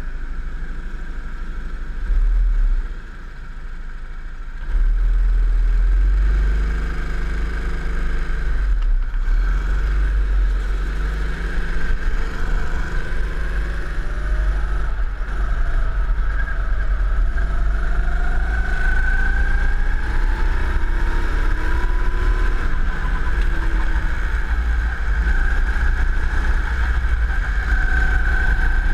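Go-kart engine heard from onboard, pulling away a few seconds in and then running on the track, its pitch rising and falling as it speeds up and slows for corners, over a heavy low rumble.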